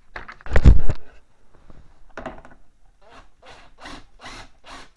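Plastic body panel of a snowmobile being pushed onto its fastener by hand, with one heavy thump about half a second in. Then comes a steady run of rasping, rubbing strokes, about three a second.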